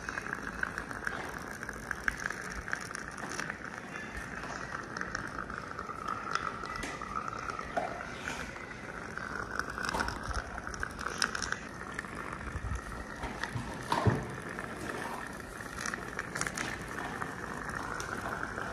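Dental saliva ejector in an open mouth sucking air and saliva: a steady gurgling hiss with scattered small clicks and one louder pop about 14 seconds in.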